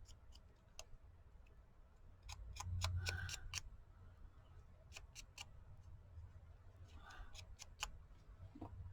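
Quiet handling of small craft supplies on a table: faint, scattered clicks and light taps, with a soft low rumble about three seconds in.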